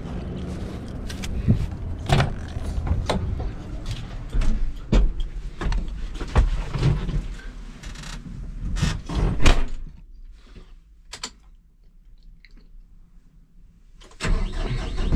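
Clunks, knocks and rattles of climbing the steps into a Kubota M135GX tractor cab and pulling the door shut, the loudest knocks about nine seconds in, followed by a few seconds of quiet inside the closed cab. About fourteen seconds in, the tractor's diesel engine starts and runs steadily.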